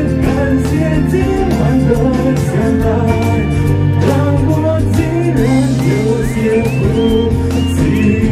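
Music: a song with singing over guitar and a steady bass line, with a short rising figure repeating near the end.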